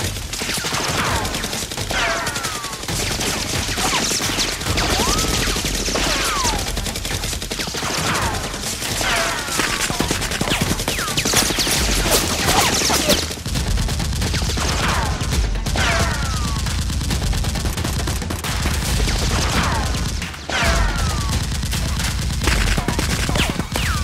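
Continuous rapid gunfire sound effects laid over a Nerf blaster battle, dense like automatic fire, with many short falling whistles of ricochets. A low rumble sets in underneath about halfway through.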